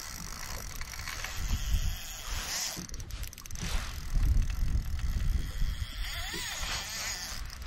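Spinning reel being cranked, its gears whirring as line is wound in, with irregular low rumbles on the microphone.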